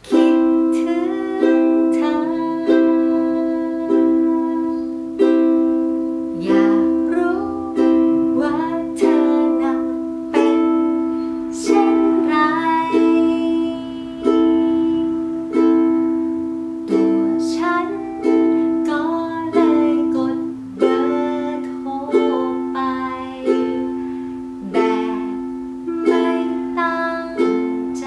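Ukulele strummed slowly with single thumb downstrokes, about one every 1.3 s, each chord ringing and fading before the next, as the player cycles through the C, A minor, F and G7 chords.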